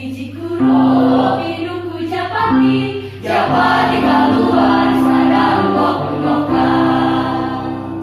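High-school choir singing in several parts, with a short break in the sound about three seconds in.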